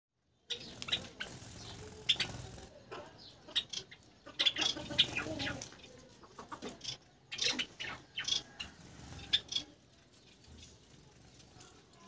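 Short chirps and calls of small aviary finches, including Gouldian finches, with wing flutters and rustling in the leafy greens they are feeding on. The activity is busiest in the first half and thins out toward the end.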